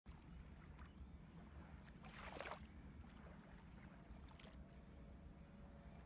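Near silence: a faint low rumble of outdoor ambience, with one brief rustle about two seconds in.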